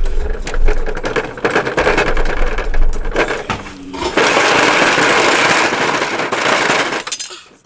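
Kitchen knife stabbing and sawing through a pumpkin's rind and flesh, a dense run of crunching and cracking. From about four seconds in, a steadier harsh scraping noise takes over and stops just before the end.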